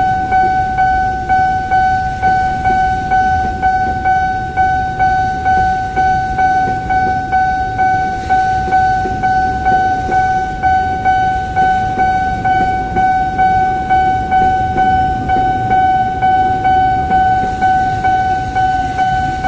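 Level-crossing warning bell ringing: a steady electronic ding repeated about twice a second, over the low rumble of a container freight train passing over the crossing.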